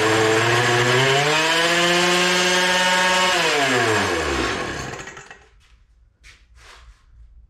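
Small two-stroke leaf-blower engine running at high revs. The revs climb about a second in and hold, then wind down smoothly until the engine stops about five seconds in. Two faint short sounds follow near the end.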